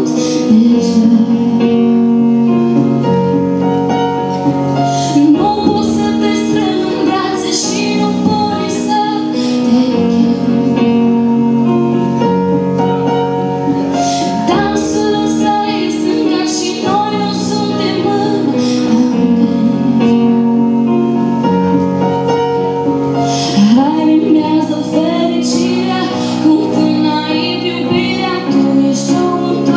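A woman singing a song into a handheld microphone over backing music with sustained chords.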